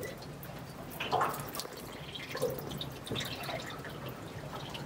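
Water in a mug dripping and splashing lightly as a rubber hose end is held in it, a few small drips and splashes over a quiet background. The water has just been boiled to heat and soften the hose.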